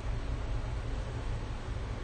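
Steady rushing noise of blowing air with a low rumble underneath.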